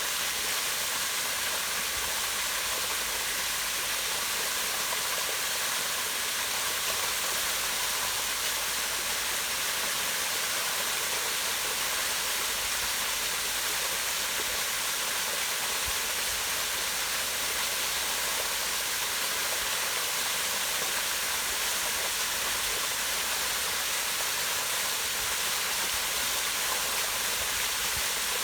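Small waterfall splashing steadily down rock into a pond: an even rush of falling water.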